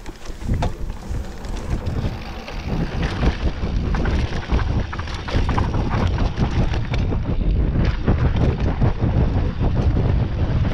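Wind buffeting the microphone over a mountain bike rolling fast down a dirt trail, its tyres crunching on dirt and rock, with many sharp rattles and knocks from the bike over bumps. It grows louder about half a second in as speed builds.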